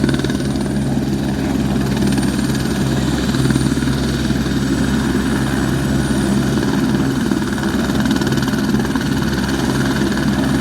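Helicopter running steadily: a loud, unchanging low drone of engine and rotor.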